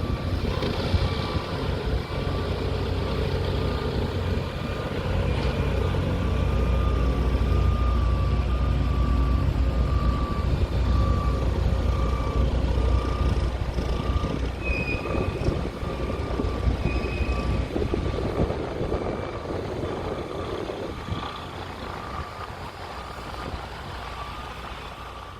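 Heavy construction machinery running with a low engine rumble that grows louder through the middle and then fades, under a repeating warning beep from a reversing or motion alarm.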